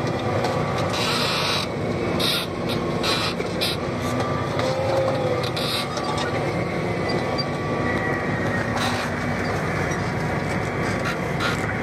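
John Deere 8530 tractor's six-cylinder diesel running steadily, heard from inside the cab while driving, with irregular rattles and knocks throughout.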